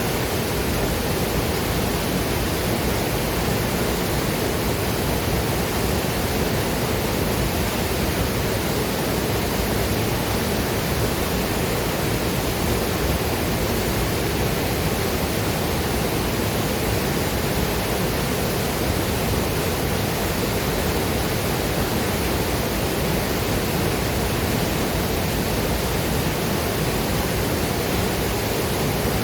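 Waterfall and river water rushing steadily, a dense even roar with no breaks.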